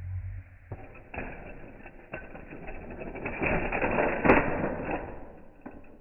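Hot Wheels shark playset clattering as a die-cast toy car rolls along the plastic track into the shark's mouth: a few separate clicks, then a rising plastic rattle that peaks in a sharp snap about four seconds in as the shark's jaws close.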